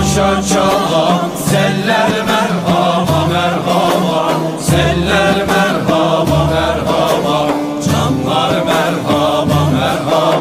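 Turkish folk song (türkü): a voice singing over instrumental accompaniment with sustained low notes.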